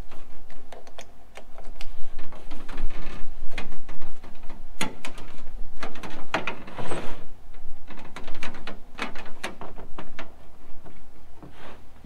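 Irregular clicks, rattles and knocks of a 12-volt power cord and plug being handled and plugged in, and of the portable fridge being moved in a pickup bed.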